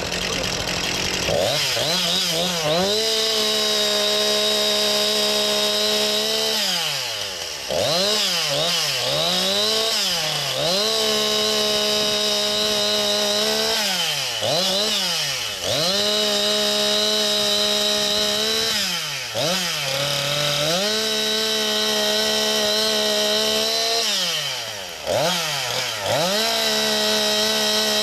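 Two-stroke chainsaw engine held at high revs, its pitch dropping as the throttle is let off and climbing again as it is squeezed, about half a dozen times.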